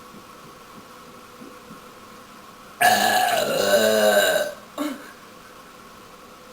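A woman's loud, drawn-out belch lasting nearly two seconds, its pitch bending down and up, with a short second burp just after.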